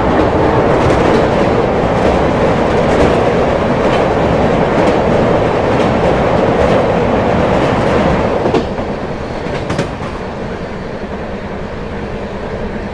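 Ernakulam Duronto Express coach running at speed, heard from the open door: a loud, steady rumble of wheels and running gear while crossing a bridge. About eight and a half seconds in it drops noticeably quieter as the train runs onto plain track, with a few clicks of wheels over rail joints.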